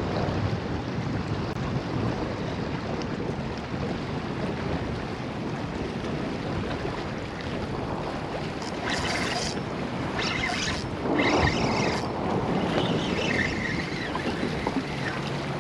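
Steady wind on the microphone mixed with water washing against a rock wall, with a few short bursts of noise between about nine and twelve seconds in.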